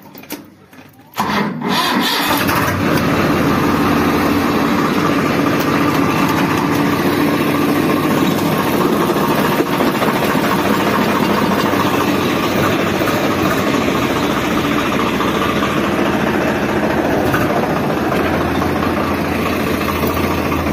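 Swaraj 855 tractor's three-cylinder diesel engine starting about a second in, then running steadily at idle. A deeper hum comes in near the end.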